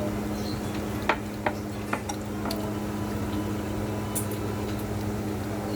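Eating at a plate of spicy adobo ribs: three or four sharp clicks of tableware a little over a second in, over a steady low hum.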